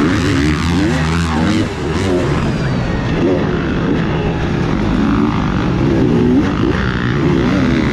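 Motocross dirt bike engine revving hard, its pitch climbing and dropping again and again through gear changes and corners, heard close up from the rider's own bike.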